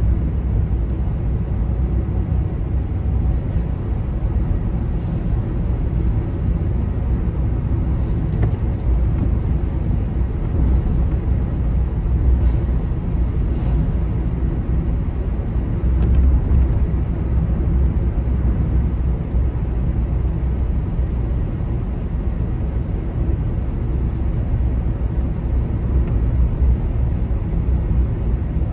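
Car driving on a wet road, heard from inside the cabin: a steady low rumble of engine and tyre noise.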